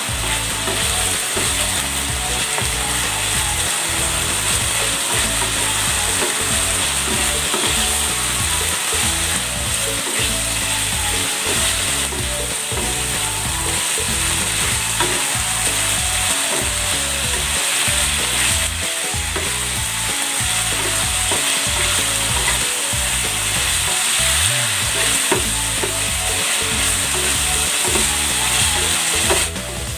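Chicken breast cubes and button mushrooms sizzling steadily in a non-stick frying pan over a gas flame as the oyster-sauce marinade cooks down, with a wooden spatula stirring and scraping the pan over and over. The sizzle drops off abruptly just before the end.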